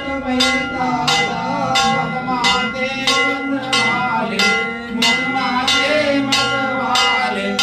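Temple bell struck at a steady beat, about three strikes every two seconds, each ringing on, with a voice singing over it.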